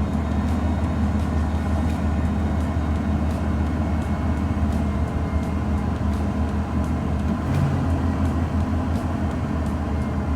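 Ford F-150 engine running at a steady idle moments after its first start following a timing chain replacement, idling a little high.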